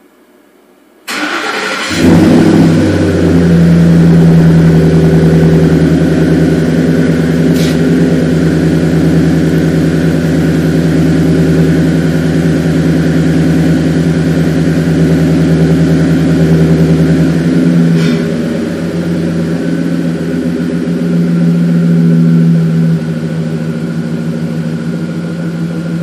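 2007 Ford F-150's 5.4-litre three-valve V8 cranked by the starter about a second in, catching and settling into a steady idle, with small shifts in level later on. It is idling for a cylinder contribution test on an engine that has logged a cylinder 5 misfire code.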